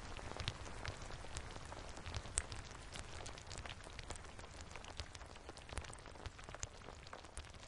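Synthesized rain: a dense patter of individual drop ticks over a steady hiss, slowly fading.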